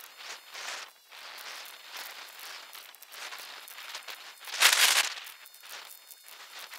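Roofers moving over synthetic roof underlayment: irregular rustling and crackling of the sheet material under knees and boots, with one louder rustle lasting about half a second a little after the middle.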